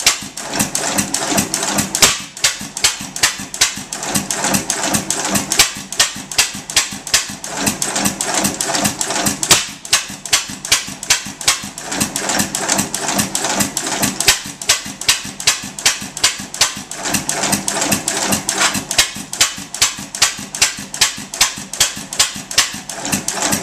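3 1/2 HP Gould, Shapley & Muir hit-and-miss gas engine running, with a steady sharp clicking about three times a second. Stretches of fuller, heavier sound come and go every few seconds as the governor lets it fire and then coast.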